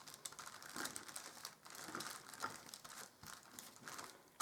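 Faint, irregular crinkling of parchment paper as a wooden dowel rolls out a coil of air dry clay on it.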